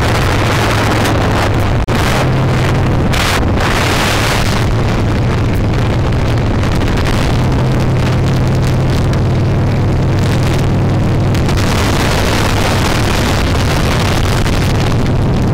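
Harley-Davidson V-twin engine running steadily at road speed, heard from the bike itself under heavy wind noise on the microphone. The sound drops out for an instant about two seconds in.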